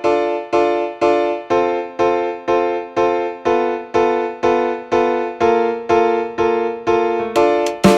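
Background music: keyboard chords struck evenly about twice a second, with drum hits coming in near the end.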